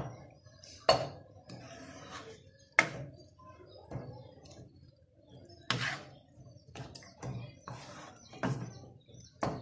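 Wooden spoon knocking and scraping against the side of a non-stick pot while thick onion sauce with eggs is stirred and mashed, giving irregular sharp knocks, the loudest about one and three seconds in.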